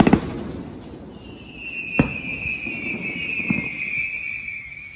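Fireworks going off: a quick cluster of bangs at the start, single sharp bangs about two seconds in and again about three and a half seconds in, and one long, steady, high whistle from a whistling firework starting about a second in.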